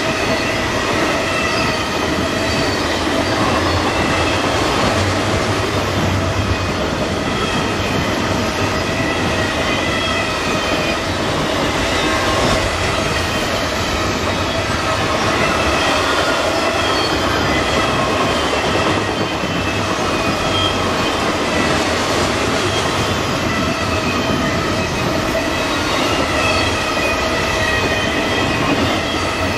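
Freight cars of a double-stack container train rolling past at speed, with an auto-rack train passing on the far track: a steady, loud noise of steel wheels on rail, with several high squealing tones from the wheels held over it.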